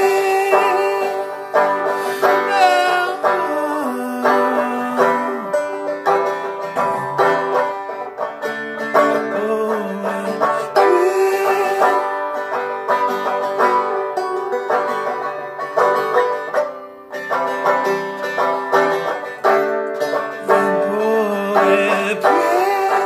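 Banjo strummed in a slow song, with a man's voice singing over it in some passages.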